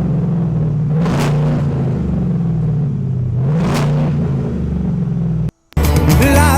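V8 pickup idling through a Borla XR1 muffler, blipped twice, about a second in and near four seconds in, each rev rising and dropping back to idle. The engine sound cuts off suddenly near the end, and music starts.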